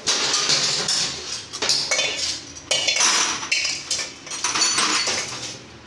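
Metal tools and parts clinking and clattering in repeated bursts, with scraping in between.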